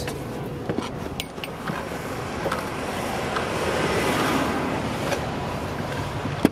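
A car pulling away: a steady rush of engine and road noise that swells to a peak about four seconds in, then eases. A few sharp knocks come from the phone being handled in the cabin.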